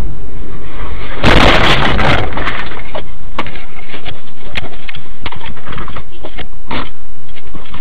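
A sudden loud crash about a second in, lasting about a second, typical of a motorcycle and car colliding on the road. Scattered sharp knocks and clicks follow, over loud, distorted background noise.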